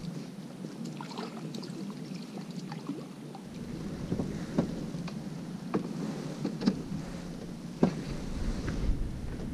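Steady low outdoor background noise with a few short, sharp clicks or taps scattered through the second half.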